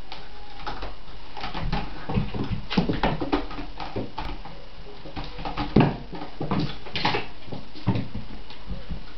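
A kitten clawing and scrambling on a sisal-rope scratching post and batting its hanging toys: irregular scratches, knocks and thumps, the loudest thump about six seconds in.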